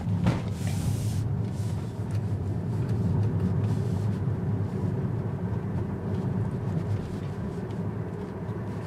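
Tesla electric car's tyres and suspension rumbling steadily over a rough, potholed road, heard from inside the cabin, with no engine note.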